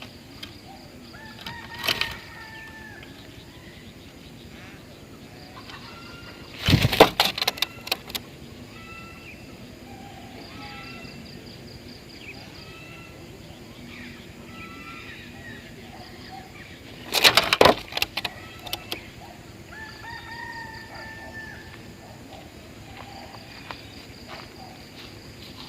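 Stork-billed kingfisher (tengkek buto) giving its harsh, rapid cackling call in two loud bursts of about a second and a half each, about ten seconds apart, with fainter short chirps and calls between them.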